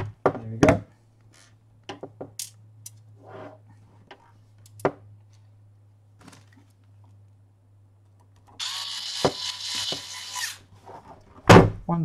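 Cordless electric screwdriver running for about two seconds, driving a hard-drive mounting screw into a DVR's sheet-metal case. Scattered clicks and knocks come from handling the metal case and screws, and a heavy thunk near the end as the case is shifted on the desk.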